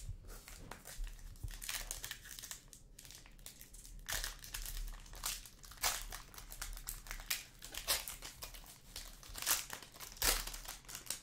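Silver foil trading-card pack wrapper crinkling in irregular crackly bursts as it is handled and opened by hand.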